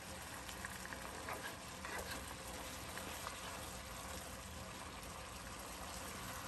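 Ground-pork lumpia filling with soy sauce simmering in a skillet: a faint, steady sizzle, with a few light scrapes and taps as a spatula is stirred through it.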